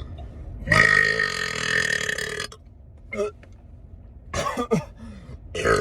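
A man's long, loud burp lasting nearly two seconds and cutting off suddenly, followed by a few short vocal sounds.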